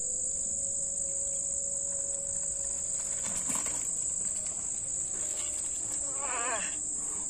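Steady high-pitched chorus of insects shrilling without pause. A short wavering call comes in about six seconds in.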